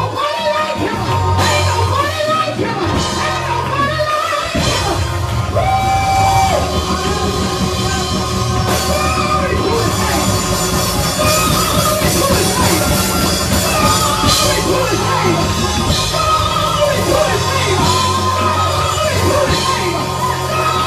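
Live gospel praise music from a church band of drum kit and keyboard, with steady low bass notes under a lead singer on a microphone.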